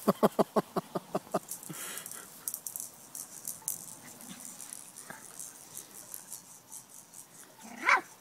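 Jack Russell Terriers at play: a quick run of short, sharp yaps at the start, about six a second, then a single rising yelp near the end as the dogs wrestle.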